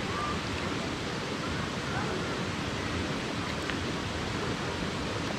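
Steady rush of a waterfall and its stream, with faint voices in the distance.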